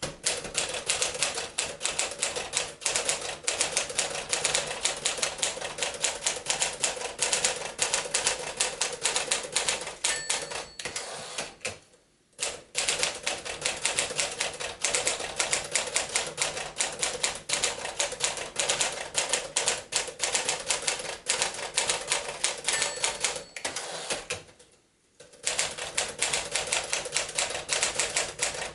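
1957 Smith-Corona Clipper manual portable typewriter being typed on at a brisk pace, a dense run of key and typebar clacks. The typing breaks off twice for about a second, once near the middle and once near the end.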